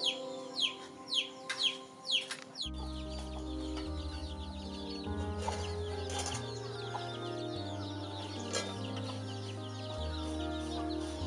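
Background music with a slow, stepping bass line that comes in about two and a half seconds in. Before it, a run of short, sharp sounds about twice a second.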